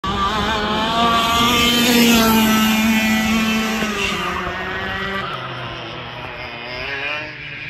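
Racing go-kart engines running on a track, a high whine that rises and falls in pitch as they accelerate and lift. Loudest about two seconds in, then fading.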